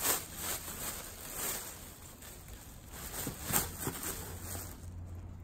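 Thin plastic bags rustling and crinkling as hands rummage through a cardboard box, with louder handling at the start and again about three and a half seconds in.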